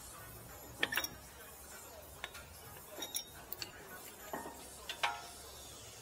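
Irregular light clicks and knocks of metal tools and brake parts being handled at a BMW F10 front brake caliper, about ten in all. The loudest come about a second in and near the end.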